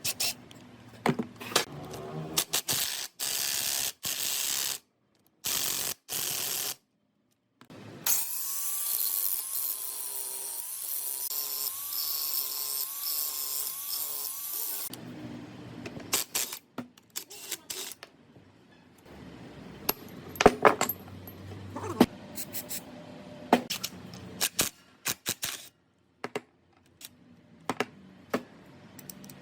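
Metal-working sounds on a rusted gearbox: sharp clicks and knocks of tools on metal parts, with a power tool running for about seven seconds midway, its whine wavering.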